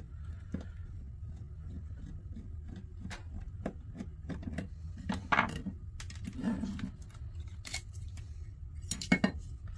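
Small clicks, taps and light scraping of plastic and metal parts being handled as a cooling fan is taken off a graphics card's heat sink, with a few louder clicks, over a steady low hum.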